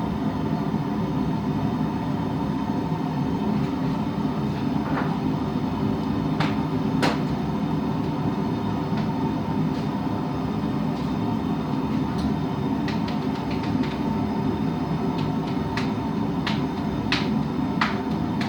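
Forge running with a steady roar. Scattered light clicks and clinks of metal sound over it, several in quick succession in the last third.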